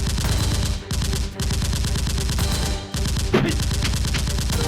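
Rapid automatic gunfire in long bursts, many shots a second, with short breaks about a second in and again near three seconds.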